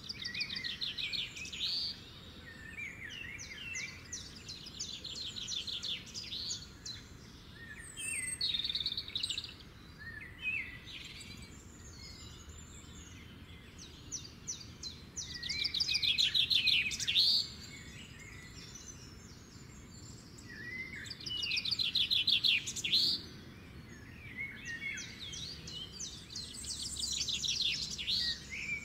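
Several songbirds singing and calling: short chirps, and fast trilled phrases that recur every few seconds, the two loudest in the second half. A faint steady low background noise runs underneath.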